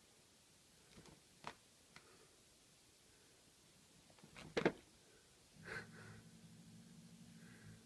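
Soft knocks and rustles of two kittens play-fighting against a fabric curtain, with one louder, sharper knock about four and a half seconds in. A faint steady low hum comes in near the end.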